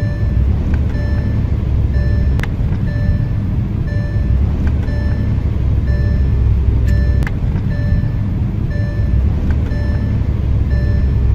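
Engine and road rumble inside a moving Porsche's cabin, with a short electronic beep of one fixed pitch repeating at a steady pace.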